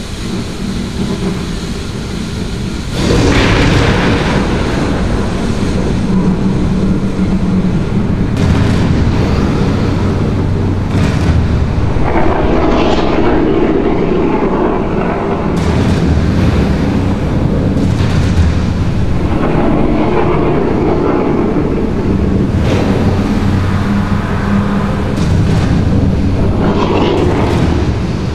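Loud wind rumbling and buffeting the microphone over the loudspeaker soundtrack of a nighttime lagoon water show. The sound gets much louder about three seconds in.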